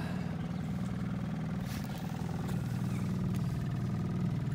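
Boat motor idling with a steady low hum.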